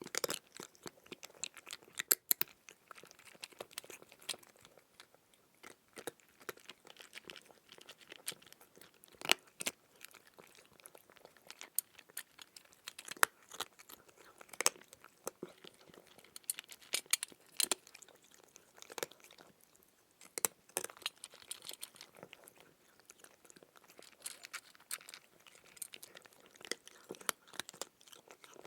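Close-up crunchy chewing: a steady run of irregular crunches and crackles as crisp food is bitten and chewed, with a few louder crunches scattered through.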